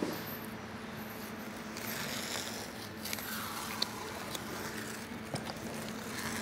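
Blue painter's tape being peeled up from around a wet thinset bed on a board, a soft tearing rasp in stretches, over a steady low hum.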